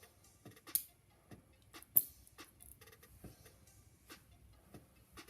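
Small metal parts clicking as the core of an ABUS 83WP/53 padlock is taken apart and its driver pins and springs are removed: scattered light ticks, with two sharper clicks about three-quarters of a second and two seconds in.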